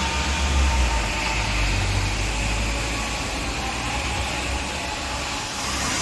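Steady rain and wind as an even hiss, with a low rumble that is strongest in the first few seconds and then eases.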